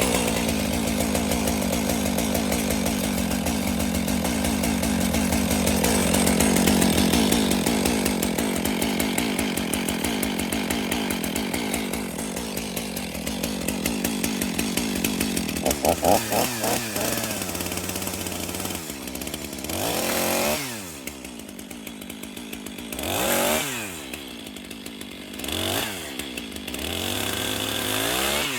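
Stihl chainsaw held at full throttle and cutting wood, its pitch sagging under load. In the second half it drops back and is revved up and down in short bursts three or four times, idling in between.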